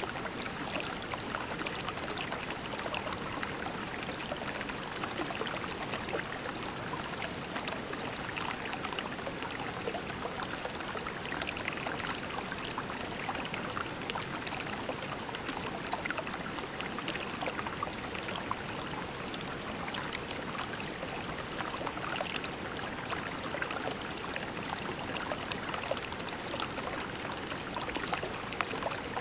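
A shallow creek running over pebbles: a steady babbling and trickling of water, with a continual patter of small splashes.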